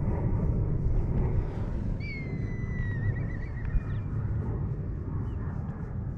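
A drawn-out high animal call about two seconds in, falling slightly and ending in a quavering trill, over a steady low rumble.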